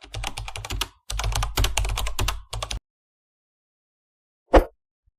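Rapid keyboard-typing clicks in three quick runs lasting nearly three seconds, then a single thump about four and a half seconds in.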